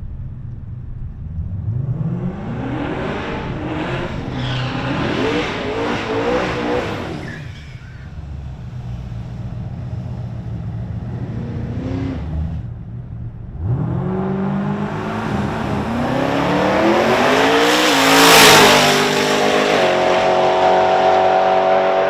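Twin-turbo LSX V8 in a drag-racing Holden Caprice: the engine revs up and down repeatedly with tyre squeal during a burnout, runs lower while the car stages, then launches hard about 14 seconds in and climbs through the gears, loudest as it goes past about 18 seconds in.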